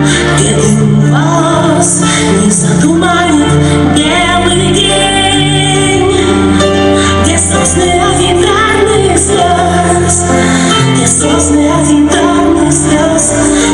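Programme music with a woman singing over sustained low notes, playing without a break.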